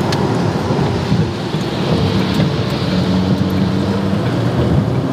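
Inside a McLaren sports car at highway speed in heavy rain: a steady rush of rain and wet-road tyre noise over the engine's low hum.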